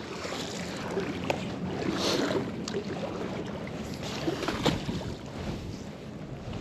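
A magnet fishing rope being drawn back in through shallow river water after a throw: light water sloshing and rope rustling against a glove, with a few faint clicks.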